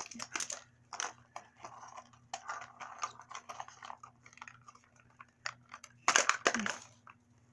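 Small plastic packaging being opened and handled, with irregular crinkles and light clicks of plastic pieces, and a louder crackle about six seconds in.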